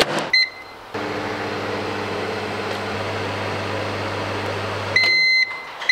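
Microwave oven: the door clicks shut and a keypad beep sounds, then the oven runs with a steady low hum for about four seconds. Near the end the hum stops and the oven beeps twice.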